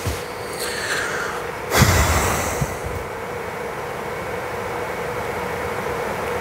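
Steady hiss of room noise with a faint steady hum, and a brief louder rush of noise about two seconds in.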